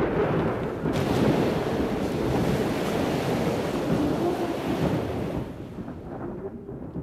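Thunder: a long rolling rumble with a sharp crack about a second in, dying away over the last second or two.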